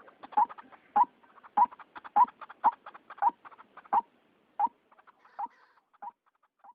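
White-breasted waterhen calling: a series of short, harsh repeated calls, about one every half second or so, spacing out and growing fainter in the last few seconds.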